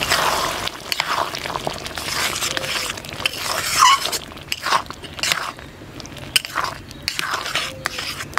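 Metal spatula stirring and scraping a thick, wet mixture of potato, poppy-seed paste and milk khir around an aluminium kadai, in repeated irregular strokes.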